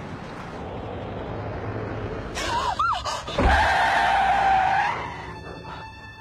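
A car coming closer, then tyres squealing, with a heavy thud about three and a half seconds in followed by a steady high screech for about a second and a half.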